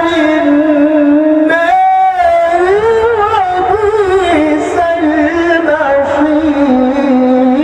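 Middle Eastern-style melodic music: a single ornamented line of long held notes that slide and waver in pitch, with a brief higher passage about two seconds in.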